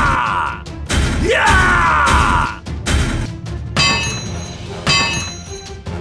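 Background music with heavy low beats and sharp hits, and sweeping pitched tones that repeat about every second and a half.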